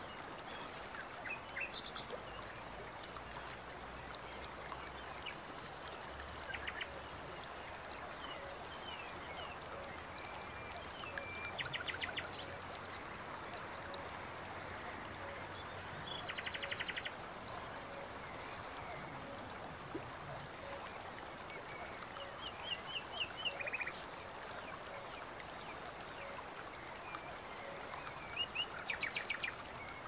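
Forest ambience: steady running water, with birds chirping now and then and giving short, rapid trills several times.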